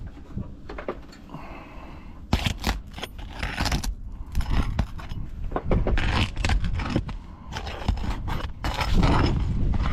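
Irregular scraping and scuffing on asphalt roof shingles, as from boots moving across the roof, busier from about two seconds in.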